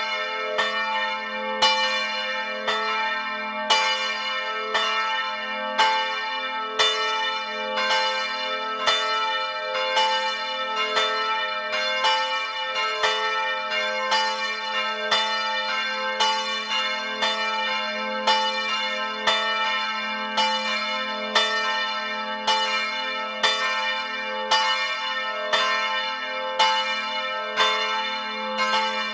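Several church bells swinging and ringing together, heard close up inside the belfry. The clapper strokes come in a steady, overlapping stream, a few each second, over a lasting low hum.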